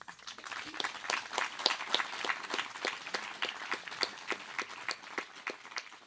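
Audience applauding, a dense patter of hand claps that thins out near the end.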